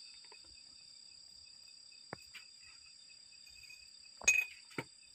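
A few sharp knocks in a narrow rock mine shaft, the loudest a short ringing metallic clink about four seconds in, over a faint steady high-pitched whine.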